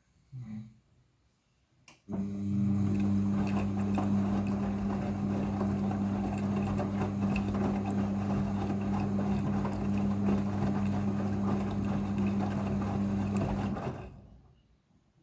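Midea front-loading washing machine during its rinse cycle: a steady electric hum with a rushing, water-like noise starts about two seconds in, runs for about twelve seconds, then stops.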